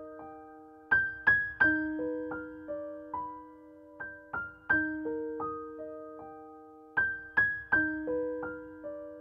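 Background music: a gentle piano melody of single struck notes left to ring and fade, the same phrase repeating about every three seconds.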